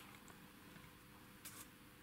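Near silence: room tone with a couple of faint clicks as the opened instrument is handled on the bench, one at the start and one about a second and a half in.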